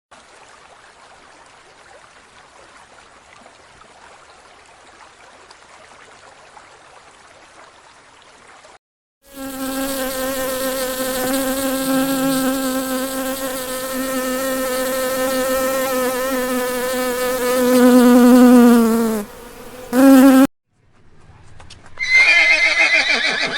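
A flying insect buzzing steadily for about ten seconds, starting about nine seconds in after faint hiss, with a slight drop in pitch before it stops. Near the end a horse whinnies briefly with a high, quavering call.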